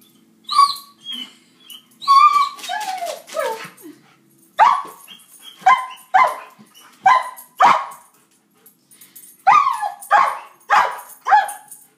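German Shepherd-type dog whining and yelping in high, falling cries, then barking in short, sharp barks, about nine in two quick runs. It is excited while chasing the light of a laser pointer on the floor.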